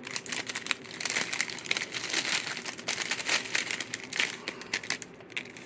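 Burger packaging crinkling as it is handled, a continuous run of irregular small crackles.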